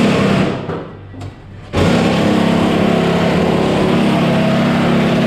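A loud burst of noise at the start; then, about two seconds in, a motor starts and runs steadily with an even hum.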